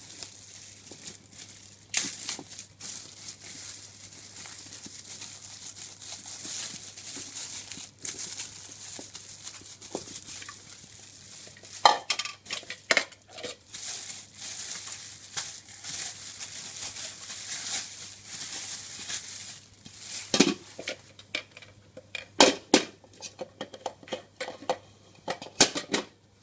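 Packaging being handled and opened: steady crinkling and rustling, with scattered sharp clicks and knocks, several in quick succession about halfway through and again near the end.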